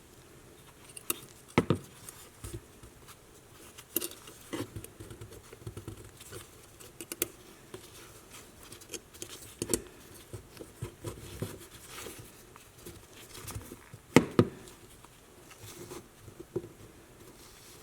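Irregular light clicks and taps of small hard objects being handled, with a few sharper knocks; the loudest comes near the end.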